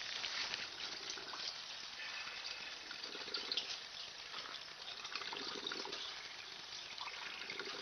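Water running through a homemade PVC-pipe hydroponic system, a steady trickle with a few short, low gurgles.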